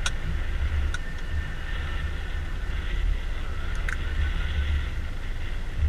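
Small boat's outboard motor running steadily, a low rumble with a thin steady whine above it, with a few light clicks.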